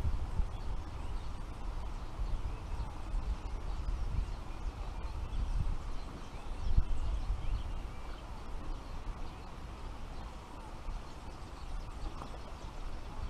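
Wind buffeting the microphone as a gusty low rumble, with faint bird chirps and a single louder bump about seven seconds in.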